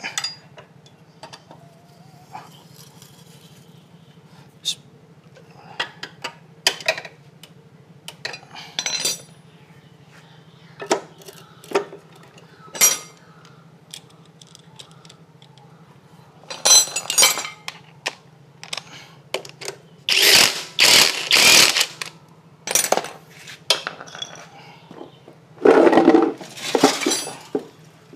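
Metal hand tools clinking and clattering on motorcycle engine parts during repair, with scattered sharp clicks and several longer, louder noisy bursts in the second half. A steady low hum runs underneath.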